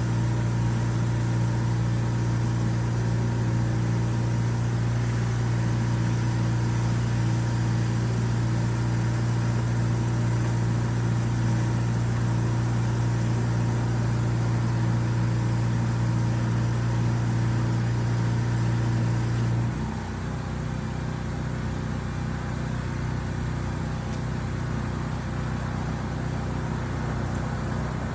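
An engine running at a steady speed with a constant hum. About nineteen seconds in the sound changes abruptly to a slightly quieter, lower engine drone.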